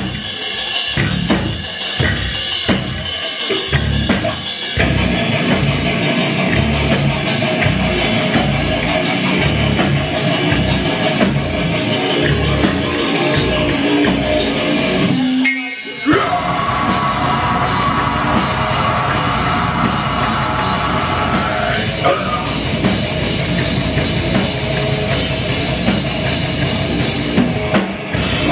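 Live metal band playing: drum kit with heavy bass drum, electric guitars and bass. The first few seconds are stop-start hits from the whole band, then it plays continuously, cuts out sharply for a moment about halfway through, and kicks straight back in.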